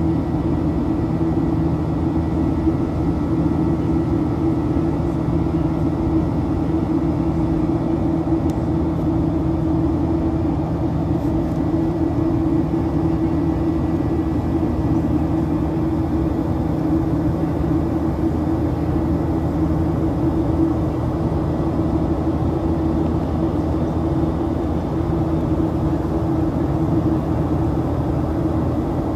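Boeing 737-800 cabin noise from a forward seat: the CFM56-7B engines running at climb power, a steady, loud drone with several unchanging low hums layered over rushing air, the fan's buzzsaw tone.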